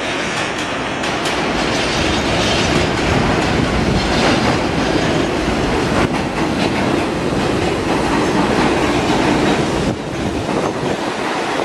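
New York City subway train running along the track: a steady rumble of steel wheels on rail with scattered clicks over the rail joints, easing slightly near the end.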